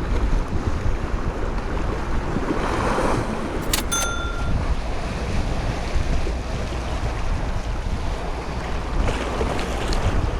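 Wind buffeting the microphone over the wash of sea waves on a rocky shore. A little under four seconds in come two sharp clicks, then a brief thin tone.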